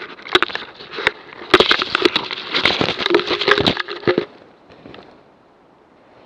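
A camera tumbling down through ferns and undergrowth after coming loose: a dense run of crackling knocks, scrapes and rustles on its own microphone for about four seconds. It then comes to rest on the ground and only a faint hiss remains.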